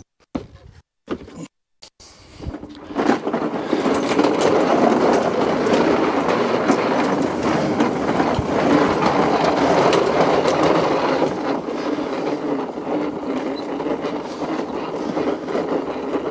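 Lawn mower being wheeled over the ground, its wheels and deck rattling in a steady rumble that begins about three seconds in, after a few short choppy cuts in the sound.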